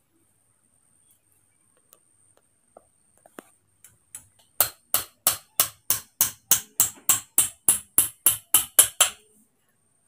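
Claw hammer driving a nail through rope into a green bamboo rung: a few light taps, then a quick run of about eighteen sharp blows, about four a second, stopping shortly before the end.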